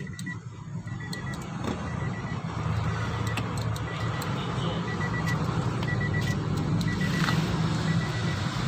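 A steady low mechanical hum that grows louder over the first few seconds. A faint high electronic beep repeats about once a second over it, with scattered light clicks.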